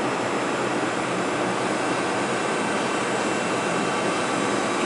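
Trumpf TrumaBend V850 hydraulic press brake cycling its ram: a steady hum of the hydraulic drive with a high hiss over it, which stops shortly after the end.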